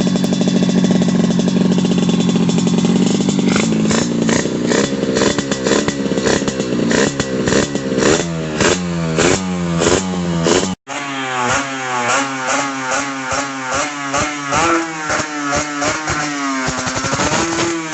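A go-kart engine running, steady at first and then revved up and down in quick repeated throttle blips, being tuned after a long time sitting unused.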